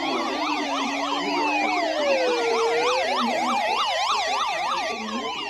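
Several emergency sirens sounding together: a slow wail rising and falling over a few seconds, layered over a fast yelp that warbles about three times a second. A lower steady tone stops about halfway through.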